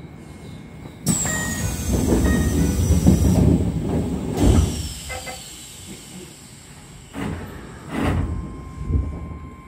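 Keisei electric train running, heard from the driver's cab. About a second in, a sudden loud rush of wheel and rail noise with a falling whine sets in for about four seconds, then eases. A few heavy rumbling thumps follow near the end.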